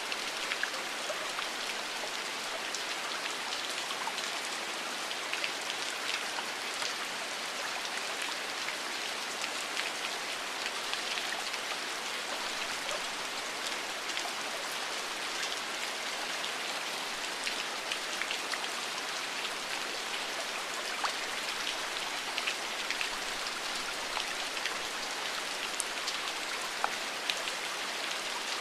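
Steady rain falling, with many small drop ticks over an even hiss.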